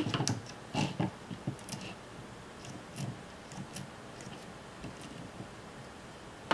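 Small clicks and knocks of a JVC GR-SMX740 camcorder's tape-deck mechanism being handled and its gears turned by hand on the metal chassis plate: a few sharper knocks in the first second, then scattered faint ticks.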